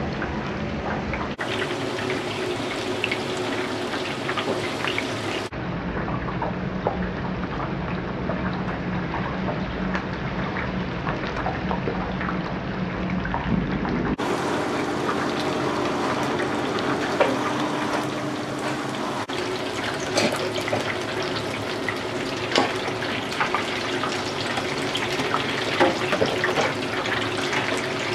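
Batter-coated prawns deep-frying in hot tempura oil: a steady sizzle with many sharp crackling pops as batter is dripped and flicked into the oil.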